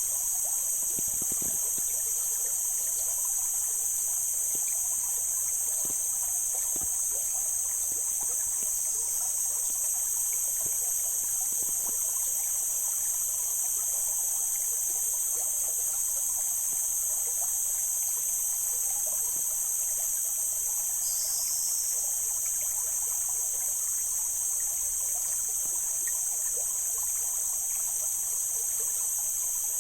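Mountain stream water flowing and trickling over rocks, under a loud, steady, high-pitched hiss that dips briefly twice.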